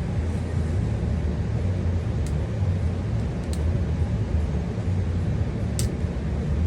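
Steady low background hum with three light clicks, about two, three and a half, and nearly six seconds in: C-ring pliers and a retaining C-clip being worked into a paintball marker's regulator.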